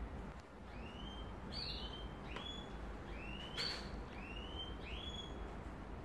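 A bird chirping repeatedly: short calls that rise in pitch and then hold, about one every two-thirds of a second. A sharp click comes about halfway through, over a low steady hum.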